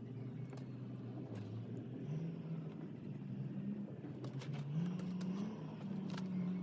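An engine running and being revved, its pitch rising and falling back several times.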